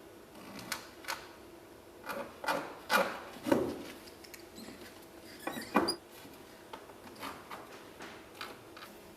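Irregular knocks and taps from Onduline bitumen ridge pieces being handled and fixed on a roof, louder and closer together in the first half and lighter towards the end.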